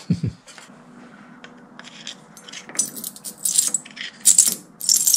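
Light metal-on-metal clinking and rattling, in a run of short bursts over the second half, as the freshly cut metal slug and disc from the lathe are handled.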